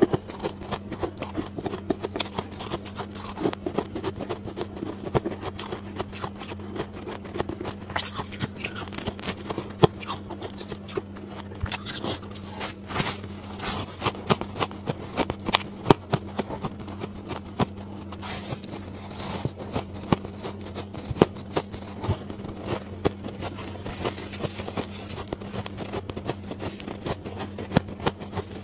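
Close-miked crunching of soft frost ice: a steady run of small crisp crackles as a mouthful is bitten and chewed, with a steady low hum underneath.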